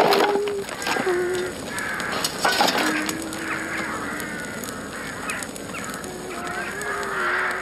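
A large flock of birds calling, many short calls overlapping continuously, over a low steady held tone.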